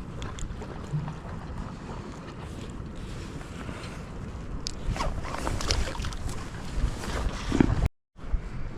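Wind buffeting the microphone by the sea, a steady low rumble. Small handling clicks and scrapes come in from about five seconds in, and the sound cuts out briefly near the end.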